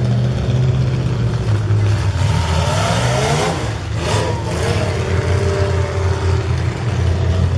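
Demolition derby cars' V8 engines running with a steady low drone; one engine revs up and back down about three to five seconds in, with a brief loud rush of exhaust at its peak.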